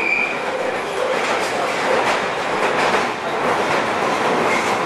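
London Underground Piccadilly Line train (1973 Tube Stock) running at speed through a deep-level tunnel, heard from inside the carriage: a loud, steady rush of wheels on rail with faint clicking. There is a short high squeal right at the start and again near the end.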